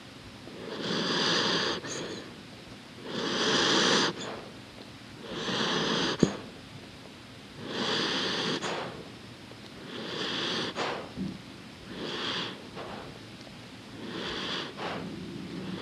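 A sleeping dog breathing slowly and noisily through its nose, recorded close up: about seven long breaths, roughly one every two seconds, growing shorter and fainter toward the end. A single sharp click about six seconds in.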